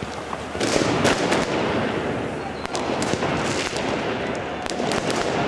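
Firecrackers going off again and again at irregular intervals, sharp bangs over the dense noise of a large stadium crowd.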